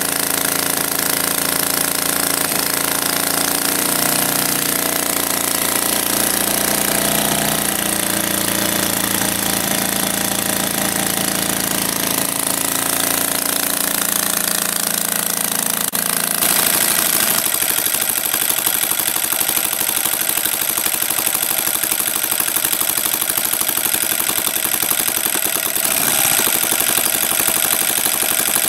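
Kolm EZ65 model aircraft engine running on a test stand with its propeller spinning, on its first run. Engine speed wavers in steps during the first half, then about halfway through it revs up sharply and holds at higher speed, with another change in speed near the end.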